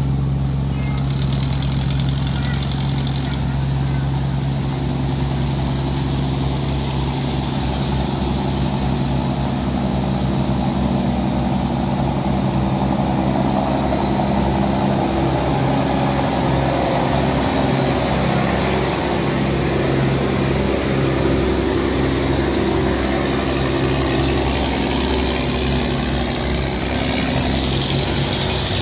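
Cargo barge engines running steadily at close range, a low even drone, with water churning along the hulls; the rush of water grows louder in the second half.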